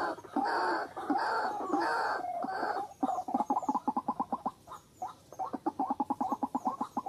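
White-breasted waterhen calling: loud croaking phrases repeated about every half second, changing about three seconds in to a fast run of short croaks, roughly seven a second.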